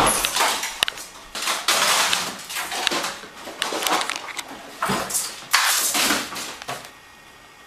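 Commotion around a squirrel loose in a kitchen: a series of loud, irregular rustling and clattering bursts that stop about seven seconds in.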